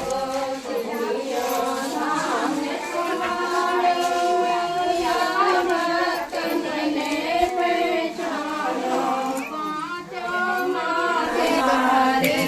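Several women's voices singing a song together in chorus, with long held, wavering notes.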